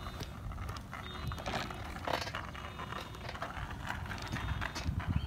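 A bicycle being ridden, with irregular mechanical clicking and rattling from the bike over a steady low rumble of wind and handling noise on the phone microphone.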